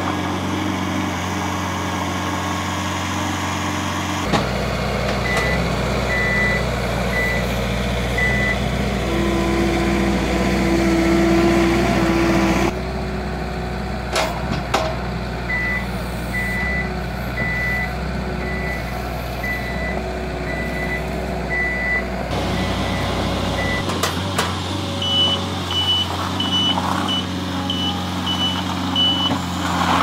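Skid steer loader's engine running steadily while it works a bale clamp, with a reversing beeper sounding in runs of short beeps about two a second, higher-pitched in the last few seconds.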